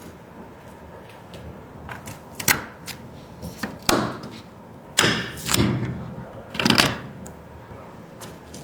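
Computer parts being handled and fitted during a PC build: a series of light clicks and knocks, with short scraping, sliding sounds from about halfway through, the loudest a little past the middle.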